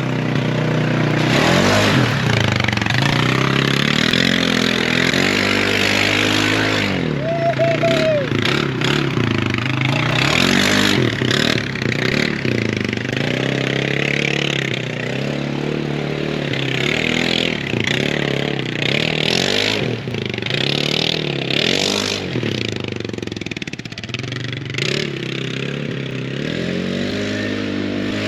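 Four-wheeler (ATV) engine revving up and falling back over and over, as when it is worked through mud, under a steady rushing noise.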